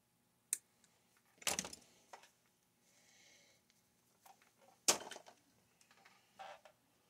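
Small tools and parts being handled on a workbench: several sharp clicks and knocks, the loudest about a second and a half in and again about five seconds in, with a short soft rustle between them.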